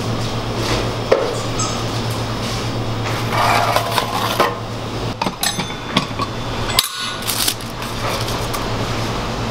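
Scattered metallic clinks and knocks of kitchen equipment being handled: an aluminium sheet tray and the steel parts of a hand-operated burger patty press. A steady fan hum runs underneath.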